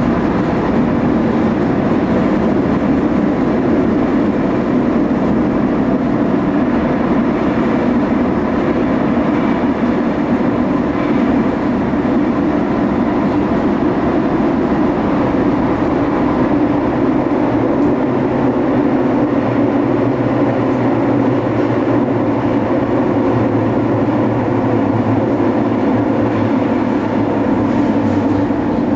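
Lisbon Metro train running steadily between stations, heard from inside the car: a continuous rumble of wheels on rail and running gear. About halfway through, a steady low hum joins in and holds.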